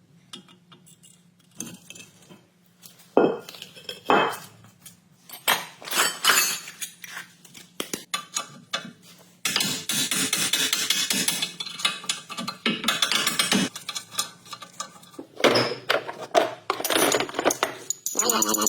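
Metal hand tools clinking and knocking against steel car parts in scattered sharp strikes, with a few seconds of denser rattling about ten seconds in.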